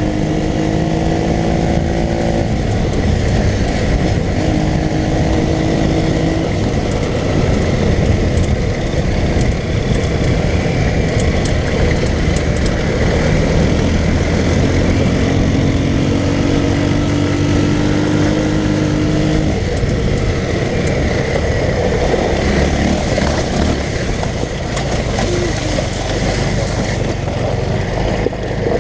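Off-road go-kart's small engine running under way, its pitch climbing slowly as it speeds up several times, with the drone continuing in between.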